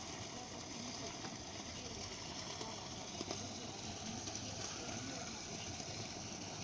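Water from a garden waterfall feature falling and splashing in a steady, unbroken rush.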